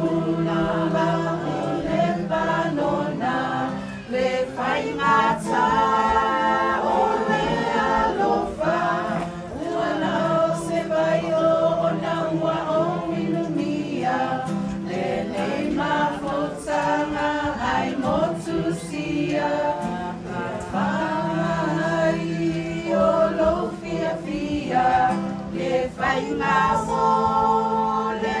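A group of voices singing together a cappella in harmony, with long held notes.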